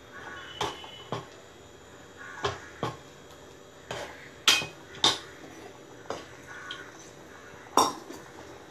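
Metal ladle stirring a thin curry in a metal pot, clinking and knocking against the pot's sides and bottom: a string of about nine sharp, irregular clinks, the loudest about halfway through and near the end.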